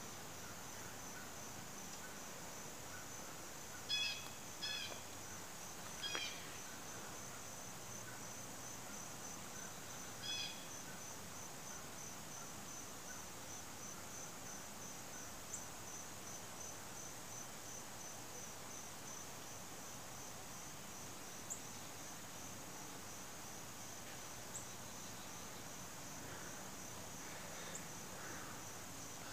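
Cricket chirping: a high, steady, evenly pulsed trill. A few brief louder squeaks sound over it about four, six and ten seconds in.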